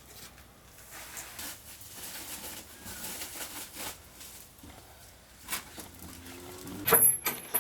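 Rustling and light knocks of handling, ending in a loud, sharp clatter near the end.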